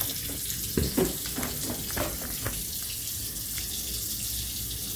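Kitchen faucet running steadily into a sink of soapy water, with a few short clatters during the first half.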